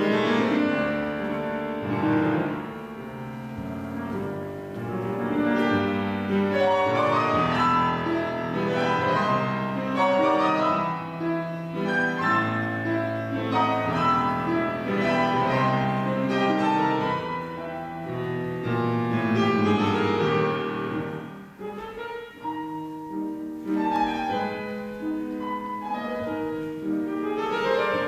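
Classical piano music, a melody over chords, with a brief lull about three-quarters of the way through.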